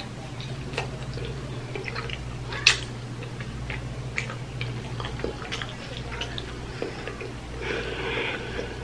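Close-up mouth sounds of a person sucking and licking her fingers and chewing: scattered wet smacks and small clicks, one sharper click about two and a half seconds in, over a steady low hum.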